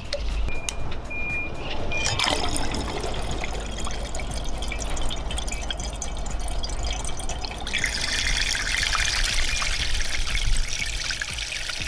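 Water swirling and churning in a glass beaker, stirred by the propeller of a HEIDON Three-One Motor benchtop stirrer. About eight seconds in the churning turns to louder splashing as the vortex deepens.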